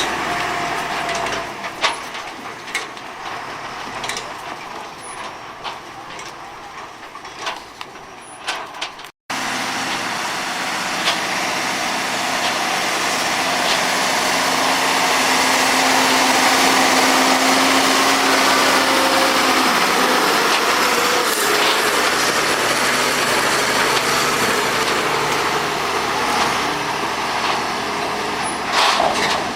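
A tractor-driven mobile drum wood chipper running, with scattered sharp knocks and clatter. About nine seconds in, after a brief break, it gives way to a louder, steady rushing noise of the machine working.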